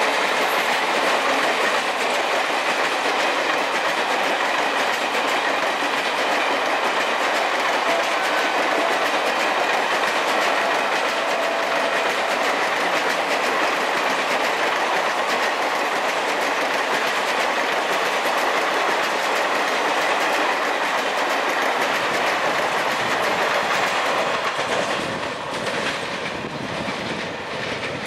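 Coaches of a 24-coach express train running past at speed, a steady rush of wheels on rail with clickety-clack over the joints. It drops off somewhat near the end.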